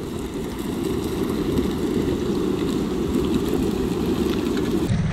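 Low, steady rushing rumble of a flash flood's leading water spreading over a stony wadi bed, mixed with wind buffeting the microphone. The sound changes abruptly to a deeper rumble near the end.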